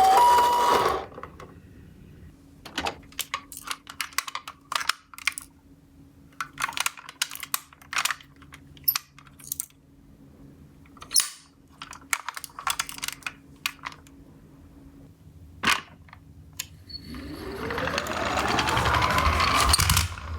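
A toy ambulance's electronic two-tone hi-lo siren stops about a second in. Then come scattered small plastic clicks and clatters from the toy cars being handled. Near the end a rising wail builds, as a toy siren starts up over a low rumble.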